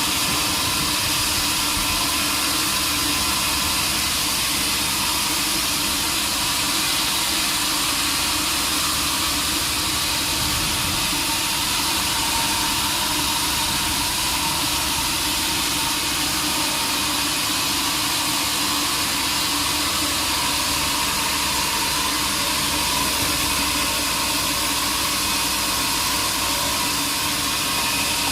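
Sawmill machinery running steadily: a constant mechanical drone with a strong hiss and no change in level.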